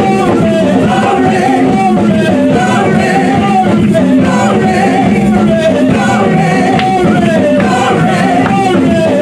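Church choir singing a gospel praise song into microphones over amplified musical accompaniment, loud and steady throughout.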